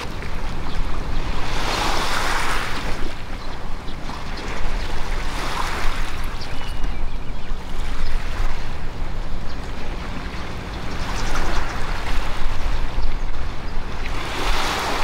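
Small waves washing against a rocky shore in soft swells every few seconds, over a steady low rumble of wind on the microphone.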